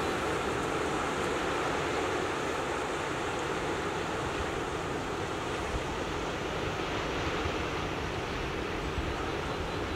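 Steady wash of sea water and surf along a rocky shore, with wind on the microphone.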